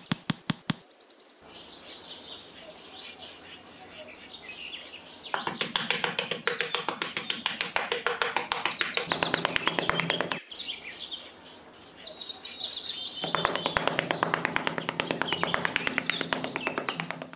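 A small metal trowel scraping and smoothing sand in quick, scratchy strokes, after a few light taps at the start, with a short break about two-thirds of the way through. Birds chirp high over it.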